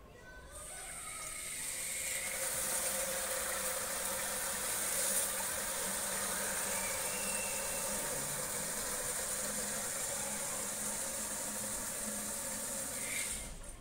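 Water running from a hose into the plastic water tank of an ultrasonic humidifier: a steady rushing sound that builds over the first couple of seconds and stops suddenly near the end.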